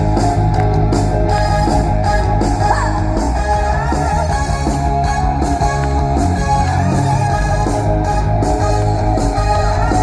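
Instrumental intro of an upbeat song: electric guitar over a steady bass and drum beat, played loud over a concert sound system.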